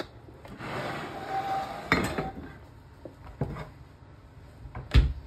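Kitchen clatter from handling the freshly baked loaf, its non-stick tin and the wire rack: a scraping rustle about a second in, a sharp knock at about two seconds, a few light clicks, then a heavy thump near the end.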